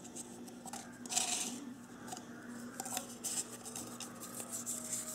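Fingers rummaging through folded paper slips inside a small metal cup, a dry rustling and scraping with small clicks against the metal, loudest about a second in.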